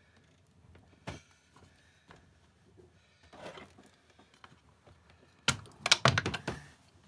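Clicks and knocks of a boat's hinged wooden switch panel being handled and swung shut over its wiring. A few faint scattered clicks come first, then a quick run of loud sharp clicks and knocks about five and a half seconds in as the panel closes into place.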